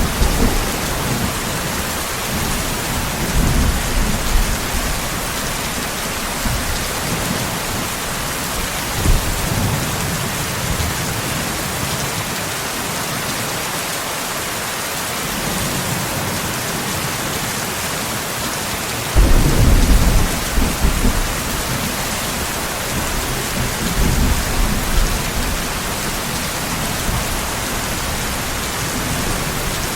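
Steady heavy rain hissing, with rolls of thunder rumbling low beneath it several times. The strongest roll comes on suddenly past the middle.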